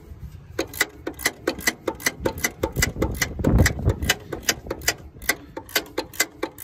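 Ratchet wrench clicking, about five clicks a second, as a 9/16 socket backs off the idler pulley nut on a mower's drive. A brief low rumble comes about halfway through.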